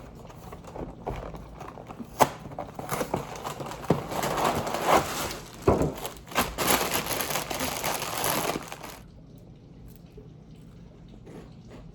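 Crinkling and crunching from handling and eating food, with scattered sharp clicks. It dies down about nine seconds in.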